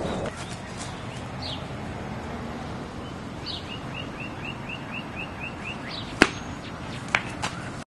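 Outdoor ambience with a bird chirping: scattered short falling notes and a quick run of about ten, roughly four a second, near the middle. A single sharp click about six seconds in, the loudest sound, and two smaller clicks about a second later.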